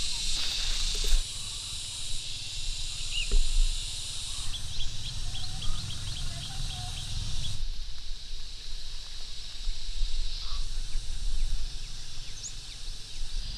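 Open-air countryside ambience: a steady high insect buzz with a low rumble beneath it. About four seconds in comes a run of quick, short bird chirps that lasts about three seconds.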